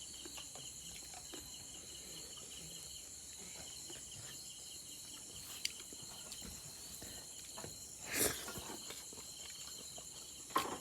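A steady chorus of insects trilling in several high, finely pulsing tones. A few faint clicks break in, and a short, louder noise comes about eight seconds in.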